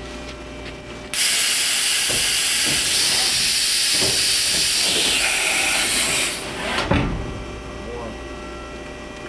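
Mori Seiki NH4000 DCG horizontal machining center during an automatic tool change. About a second in, a loud hiss starts abruptly and runs for about five seconds, then a single clunk follows. Under it all is the machine's steady hum.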